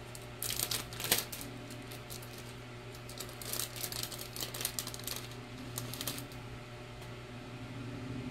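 Plastic wrapping crinkling and crackling as a small package is picked open by hand, in spells of quick clicks, over a steady low hum.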